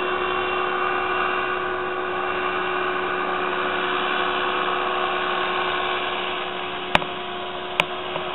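Powered paraglider's paramotor engine droning steadily overhead, a little quieter after about six seconds as it moves away. Two sharp clicks near the end.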